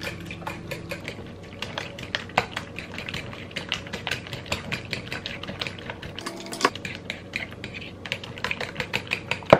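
Metal fork beating raw eggs with chopped vegetables in a ceramic bowl, the tines clicking rapidly and unevenly against the bowl.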